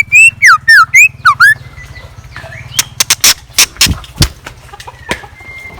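A chèo lửa (minivet) decoy bird singing a quick phrase of about six loud, swooping whistled notes, each sliding down or up in pitch. This is followed by a run of sharp clicks or knocks about three to four seconds in, over a steady low hum.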